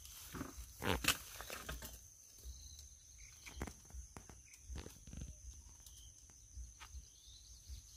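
A hand digging tool striking and prying into the soil at the base of a wild bamboo clump to dig out bamboo shoots. The knocks are irregular: a cluster in the first second, then scattered single ones.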